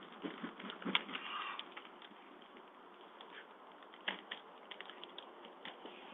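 Irregular sharp clicks and clacks, like typing, from a flock of white storks' bills snapping as the birds pick at food on the grass. There is a denser patter of clicks about a second in.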